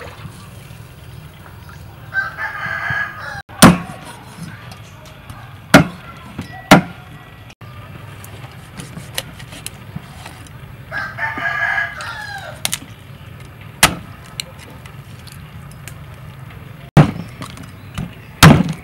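A heavy cleaver chopping through a raw whole chicken into a wooden chopping block: about six sharp, loud blows a few seconds apart. A rooster crows twice, a couple of seconds in and again just past the middle.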